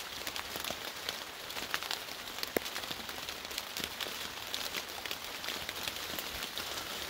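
Rain falling on dense wet salal foliage: a steady hiss of rain with many small, sharp drop ticks scattered throughout.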